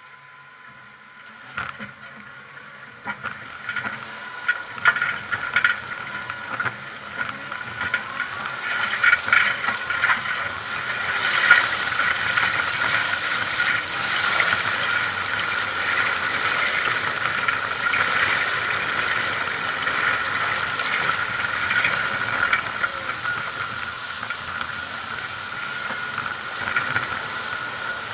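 A four-wheel drive crossing a river: knocks and rattles as it rolls over river stones, giving way about ten seconds in to a steady rush and splash of water against the vehicle over the engine.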